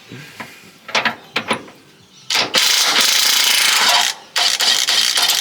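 Impact wrench undoing a subframe bolt, run in two rattling bursts of under two seconds each, with a few clicks before the first.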